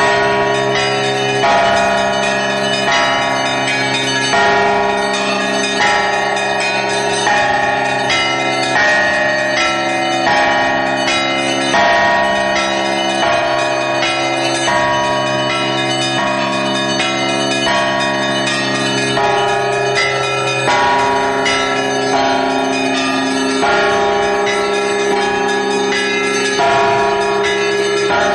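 Russian Orthodox church bells rung by clapper ropes: one ringer strikes a set of bells of several sizes in a continuous peal. Heavier strokes come about every second and a half, with smaller bells filling in between, and their tones overlap and ring on.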